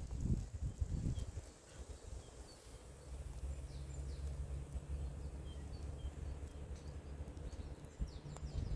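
Faint, scattered songbird chirps. In the first second or so there is low rumbling, likely wind on the microphone, and a low steady hum comes in about three seconds in.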